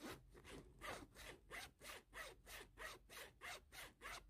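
Zipper on a handbag's inner pocket being pulled open in a series of short, faint strokes, about three a second.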